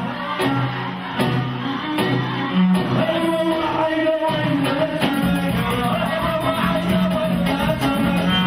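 Live band music led by a Korg arranger keyboard, played with both hands: a melody of held notes over accompaniment.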